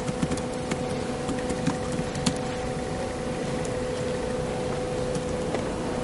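Quiet room tone: a steady hum over an even background noise, with scattered small clicks and knocks during the first two seconds or so.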